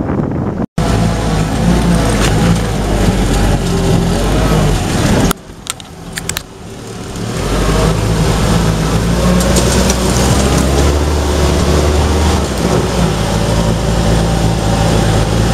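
M151A2 military jeep's four-cylinder petrol engine running, heard from the front seat. The sound drops away suddenly about five seconds in, then the engine comes back and builds up again.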